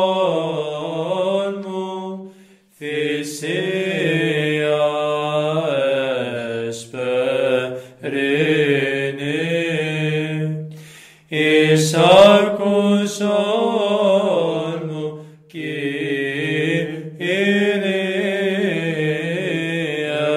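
Byzantine chant of a Greek Orthodox vespers service: a sustained, melismatic vocal line sung in long phrases with short breaths between them.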